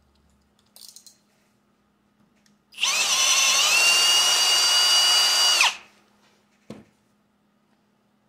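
Cordless drill with a gold twist bit drilling through a metal frame bracket held in a bench vise, a high steady whine for about three seconds; it speeds up slightly just after starting and then stops abruptly. A single sharp knock follows about a second later.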